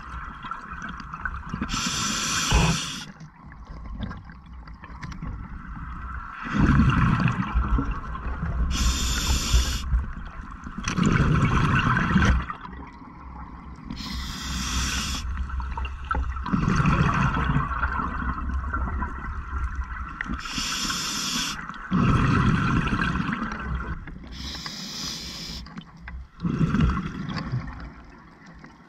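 Scuba diver breathing through a regulator underwater: a hissing inhale, then a low rush of exhaled bubbles, the cycle repeating about every five to six seconds, five times in all.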